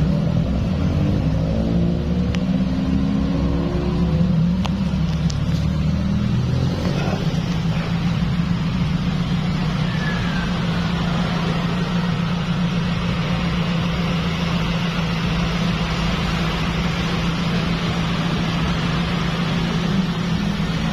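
Steady low mechanical hum, like a motor or engine running, with some rising and falling pitch in the first several seconds.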